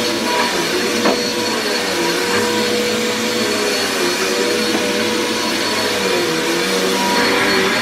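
Upright bagless vacuum cleaner running on carpet: a steady motor drone with a high whine held throughout.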